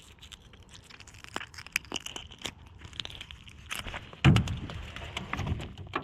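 Close handling noises as a small caught fish is dealt with before release: a run of sharp clicks and crackles, with a heavy thump about four seconds in and a softer one a second later.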